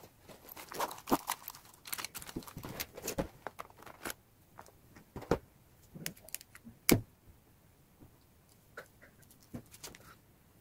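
Small clicks, taps and rustles of pens, stickers and paper being handled on a tabletop, with one sharper knock about seven seconds in.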